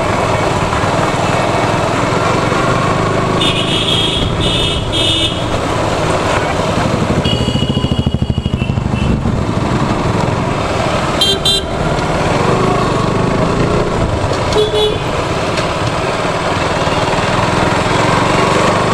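KTM RC 200 motorcycle engine running at low speed in slow traffic, its beat plain for a moment about eight seconds in. Vehicle horns honk in short toots several times, first a quick run of three about four seconds in, then more around eight, eleven and fifteen seconds.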